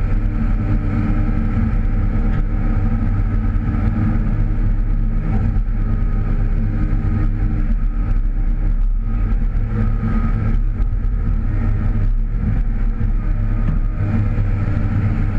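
Komatsu PC308 hydraulic excavator's diesel engine running steadily under load while the machine digs, swings and dumps, heard from inside the operator's cab.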